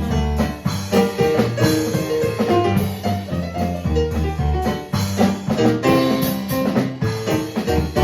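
A live band playing: drum kit keeping a steady beat under keyboard chords and melody.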